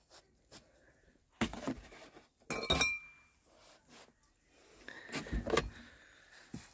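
Glass beer bottles being handled and set down into snow: a few short knocks and handling noises, with one sharp glass clink that rings briefly about two and a half seconds in.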